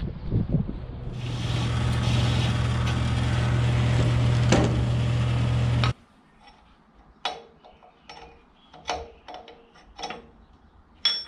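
A workshop power tool's electric motor running steadily for about five seconds, then stopping abruptly; after it, scattered light clicks and knocks of steel and tools being handled.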